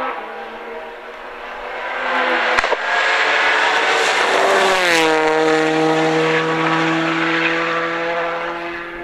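Skoda Octavia WRC rally car's turbocharged four-cylinder engine under hard throttle, approaching and passing at speed. Its pitch drops steeply as it goes by about five seconds in, then it holds a steady lower note that slowly fades as it pulls away. A single sharp crack about two and a half seconds in.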